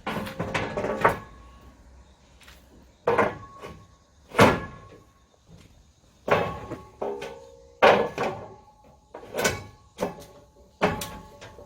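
A series of sharp metallic clanks and knocks, about a dozen spread out at uneven intervals, several ringing briefly after the hit, as heavy metal parts are handled and knocked together.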